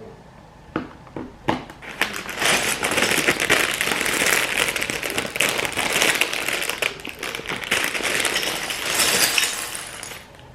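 Crinkling plastic bags of Lego pieces being handled and opened, with the small plastic bricks clicking and rattling inside. A few separate clicks at first, then about eight seconds of steady crinkling before it stops near the end.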